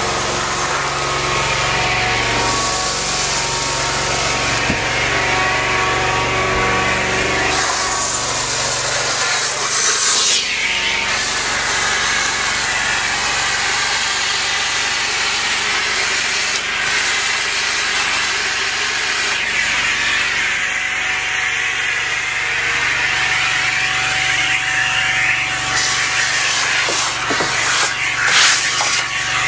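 Engine-driven 580 Gutter Super Sucker vacuum running steadily, with a loud rush of air drawn in through its corrugated hose as it sucks up dirt and debris. The rush swells briefly about ten seconds in and again near the end.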